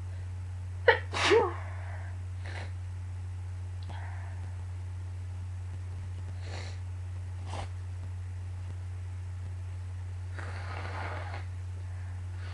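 A single loud sneeze about a second in, from someone who is sick: a sharp intake-and-burst followed straight away by a voiced 'choo'. After it come a few faint sniffs and a longer faint breath near the end, over a steady low hum.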